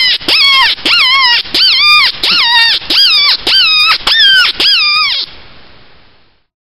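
Mouth-blown predator call sounded in a fast series of high, wavering squeals, about two a second, to lure in coyotes; the squealing stops a little past five seconds in.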